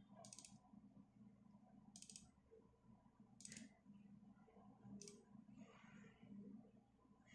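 Faint computer mouse clicks: four short bursts of clicking about a second and a half apart, with a soft rustle near the end.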